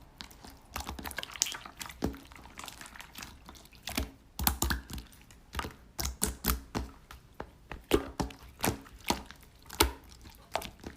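A run of irregular taps, clicks and light knocks, a few to the second, from small objects being handled.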